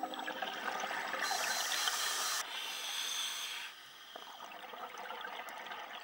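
Scuba diver breathing through a regulator underwater: two loud hissing rushes of exhaled bubbles, about a second apart, then a quieter water hiss.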